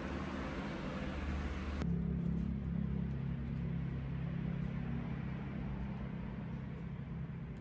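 A wide hiss stops abruptly about two seconds in. After it, a steady low motor hum runs on, with a few faint light clicks.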